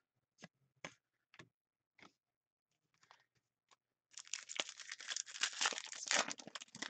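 A few light clicks of cards and packaging being handled, then, about four seconds in, a couple of seconds of dense crinkling and tearing as a foil trading-card pack is ripped open.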